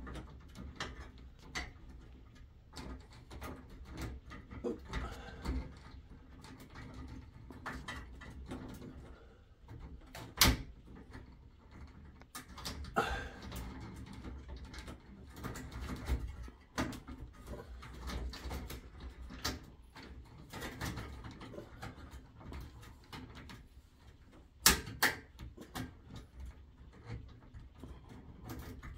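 LED tube being fitted into a fluorescent fixture: its pins scraping and clicking in the plastic end sockets as it is pushed up and twisted into place, with sharp snaps about ten seconds in and again, twice in quick succession, about twenty-five seconds in.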